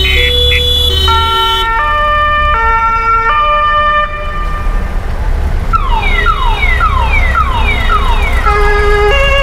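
Several emergency-vehicle sirens sound at once: two-tone horns step between their two notes about every three-quarters of a second. Partway through, one siren gives a rapid series of about six falling wails before the two-tone sounds return, all over the low running of vehicle engines.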